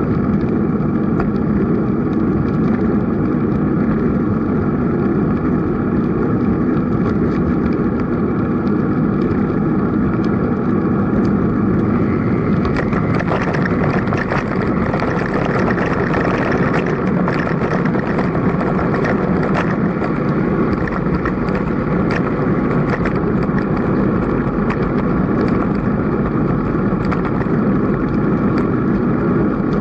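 Steady rumble of wind and tyre noise on a bicycle-mounted action camera riding at about 20 km/h, with a faint steady whine of a few tones. Small clicks and rattles from the bike over bumps run throughout, growing busier about halfway through.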